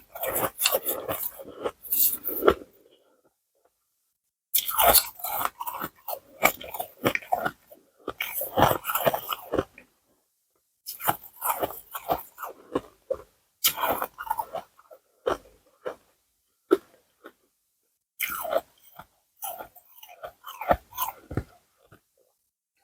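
Ice being bitten and chewed close to the microphone: bursts of sharp crunching lasting a few seconds each, broken by short silent pauses.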